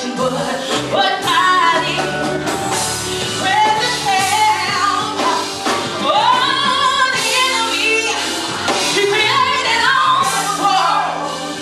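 Gospel music: singing over band accompaniment, with a bass line moving in steady notes beneath the voices.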